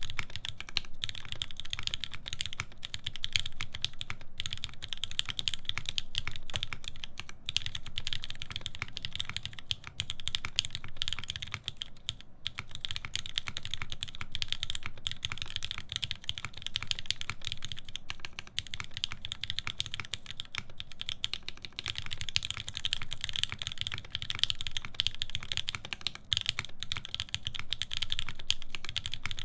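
Fast, continuous typing on a Linworks Whale mechanical keyboard with lubed linear Cherry MX Black switches in a full aluminium plate and GMK keycaps: a dense stream of key clacks, with brief pauses now and then.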